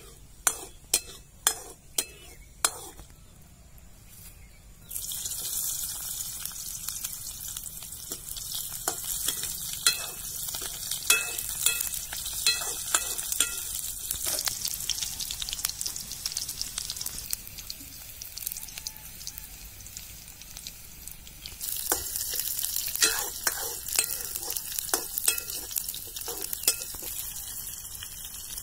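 Sliced onions sizzling in hot oil in a steel kadai, stirred with a steel ladle that clicks and scrapes against the pan. A few sharp ladle taps come first; the sizzle starts loudly about five seconds in, dies down, then flares up again near the end as tomatoes go into the pan.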